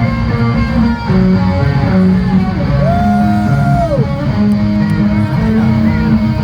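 Heavy metal music led by electric guitar over bass, with a long held guitar note that bends down about halfway through.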